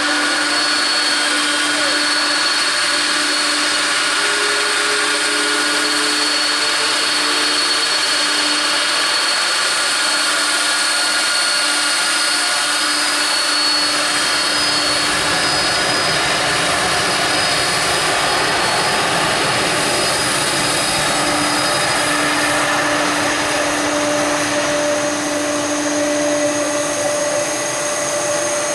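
Jet engines of a Boeing airliner at takeoff thrust, a steady loud whine with several held tones over a rushing noise. A deeper rumble fills in about halfway through.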